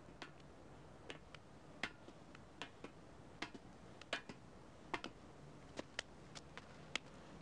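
Footsteps of two people walking down stairs and on across the ground: irregular sharp clicks, about one to two a second.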